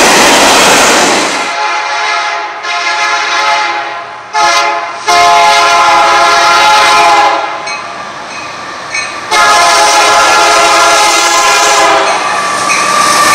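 A passing train's loud rush, then a diesel locomotive's air horn sounding a steady chord in long blasts: a short one, then two long loud ones with the horn still heard more faintly between them.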